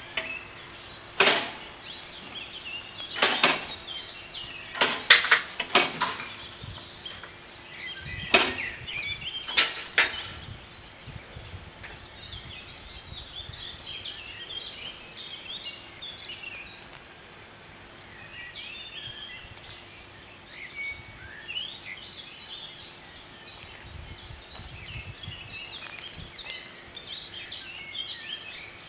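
Level crossing closing: a string of loud, sharp noises at uneven intervals over the first ten seconds while the barrier booms come down. After that, birds chirp over a faint steady hum while the barriers stay down.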